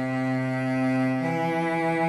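Sampled orchestral cello from the EastWest Quantum Leap Symphonic Orchestra library, played back from MIDI: a held note that moves smoothly up to a higher note about a second in. Its loudness follows a hand-drawn volume swell, programmed to make the line sound more human and realistic.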